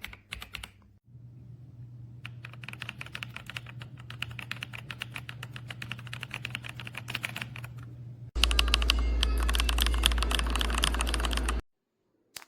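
Fast typing on a mechanical keyboard, a dense run of key clicks. About eight seconds in it suddenly gets much louder, with a low hum under the keystrokes, then cuts off abruptly near the end.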